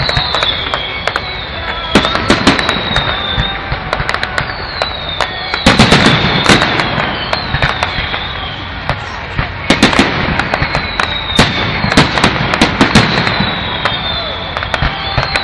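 Fireworks display: a run of whistling fireworks, each a short falling whistle, mixed with sharp bangs and crackling bursts that come in several loud clusters.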